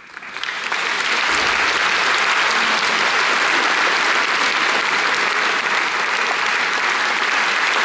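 A concert hall audience breaking into applause, swelling over about the first second into steady, dense clapping.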